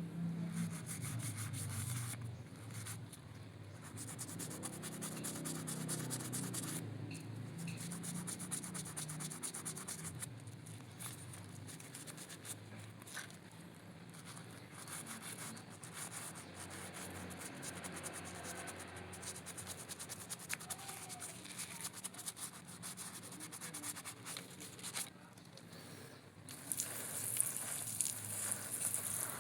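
Brush scrubbing a dirty toy figure: rapid, continuous rubbing strokes with a raspy hiss, stopping briefly a few times and pausing once near the end.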